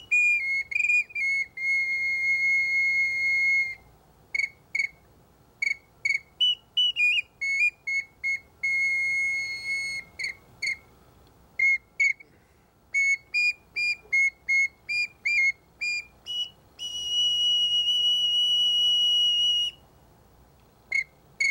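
Bird flute played with a pure, high whistling tone. It opens on a held note of a few seconds, moves into many short chirping notes in quick runs, and later holds a long steady note a little higher in pitch before the chirps return.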